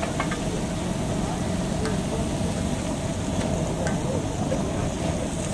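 Masala sizzling and steaming on a large flat iron tawa griddle over a low, steady street rumble, with a few light clicks.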